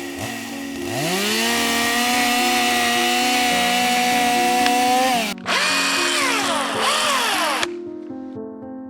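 Milwaukee M18 Fuel battery-powered chainsaw revving. The motor spins up about a second in and holds a steady high whine, stops for a moment just past the five-second mark, spins up again, then winds down and cuts off near the end.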